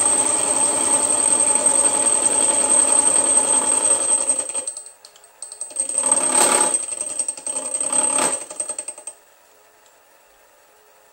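Milling machine running, its disc gear cutter cutting a tooth into a gear blank held in a dividing head, with a steady high whine over the cutting noise. About four and a half seconds in the sound drops away, then comes back briefly with two metallic knocks, and stops about nine seconds in, leaving only faint room noise.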